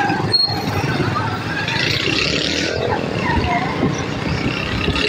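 Busy market street ambience: a mix of many people's distant chatter and motor traffic, with motorcycle rickshaws running close by.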